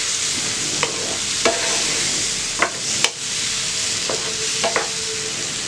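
Fresh fig pieces sizzling in ghee in a nonstick frying pan, under a steady hiss. A wooden spatula stirs them, knocking and scraping against the pan about seven times.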